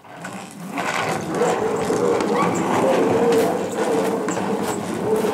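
Skateboard wheels rolling on a concrete path: a steady rumble that builds over the first second, with occasional clicks.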